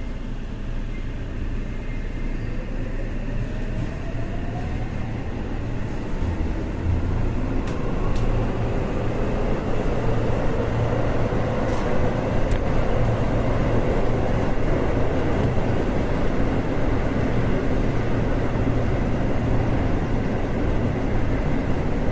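Electric subway train pulling away and accelerating in a tunnel, heard from inside the front car: a motor whine rises in pitch over the first several seconds, then the wheel and tunnel running noise grows louder and holds steady.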